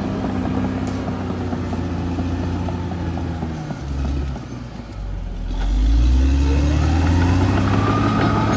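Caterpillar D6R XL bulldozer's diesel engine running. Its pitch sags about three to four seconds in, then revs back up and runs louder from about six seconds.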